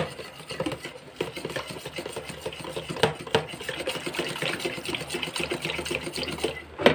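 Wire balloon whisk beating a thin liquid batter in a plastic container: continuous fast scraping and swishing, with scattered clicks of the wires against the container and a sharper tap near the end.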